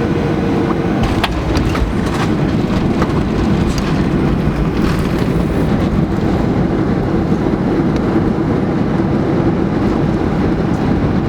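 Boeing 737-800 cabin noise: a loud, steady rumble of engines and airflow, with a few brief rattles about one to four seconds in.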